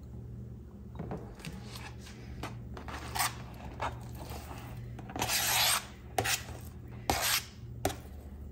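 Knife blade scraping diced raw chicken off a flexible plastic cutting board into a nonstick frying pan: a series of short scrapes and soft taps, the longest and loudest about five and seven seconds in.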